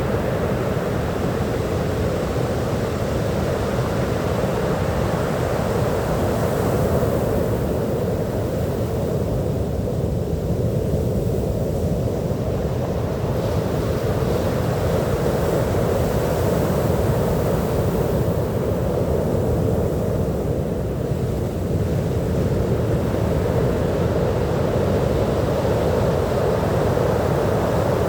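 Ocean surf breaking on a beach: a steady, heavy wash of waves whose hiss swells and eases slowly every ten seconds or so.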